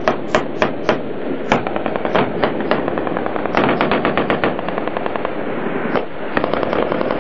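Small-arms fire in a firefight: single rifle shots a quarter to half a second apart, then a rapid automatic burst about halfway through and another near the end.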